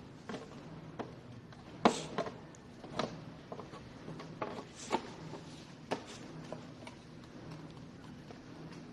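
Bottom shell (underside cover) being fitted back in place by hand: a series of irregular light clicks and knocks, the loudest about two seconds in.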